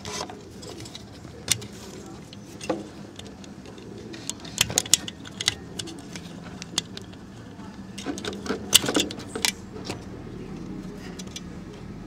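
Small plastic-and-metal clicks and rattles as the start relay and overload protector on a refrigerator compressor's terminals are handled and worked loose. They come in clusters about four to five seconds in and again near nine seconds, over a steady low hum.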